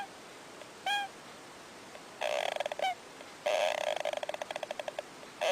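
An animal calling: short arched squeaky calls, then long, rapid chattering trills.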